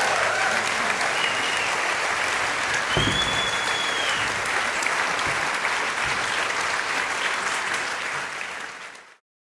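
Theatre audience applauding, with a couple of high whistles over the clapping. The applause fades and cuts off shortly before the end.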